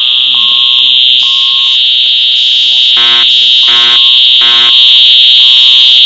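Building fire alarm sounding: a steady high-pitched tone runs throughout, and about three seconds in a horn gives three short blasts, then a pause before it starts again near the end. This is the three-pulse temporal pattern used to signal evacuation.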